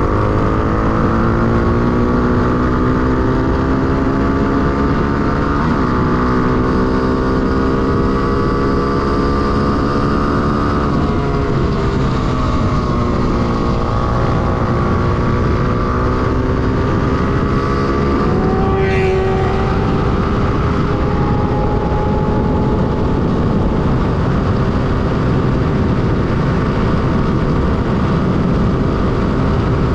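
Honda XR250 Tornado supermoto's single-cylinder four-stroke engine at speed on track, heard from the rider's position. The revs climb with a short dip about six seconds in, fall off for a couple of seconds around the middle as the rider eases off, then build again, over steady wind rush.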